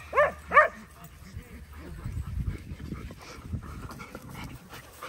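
A dog barking twice in quick succession, short high yaps. After that there is only a low rumbling noise with faint scuffs.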